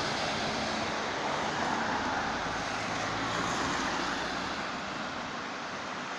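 Street traffic: an articulated city bus driving away, its engine and tyre noise slowly fading over the first five seconds, with cars on the road behind it.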